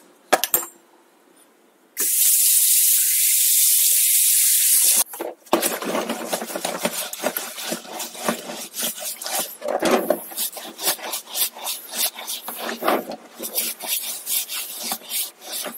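Water runs steadily for about three seconds, then a brush scrubs a bicycle's rear cassette sprockets with fast, uneven strokes to lift grease and grit.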